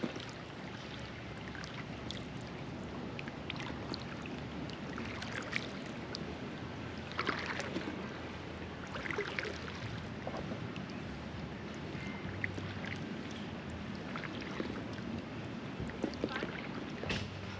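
Quiet water sounds around an inflatable kayak on a calm river: a steady hiss of water and light air, with a few soft, brief splashes or drips scattered through it.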